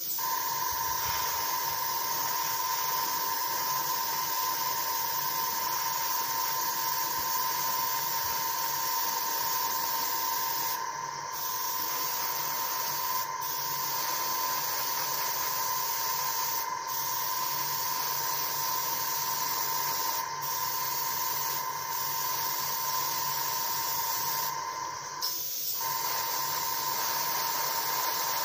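Harder & Steenbeck dual-action airbrush spraying gloss black lacquer paint, a steady hiss of air with a steady tone underneath. It breaks off briefly about six times as the trigger is let go between passes.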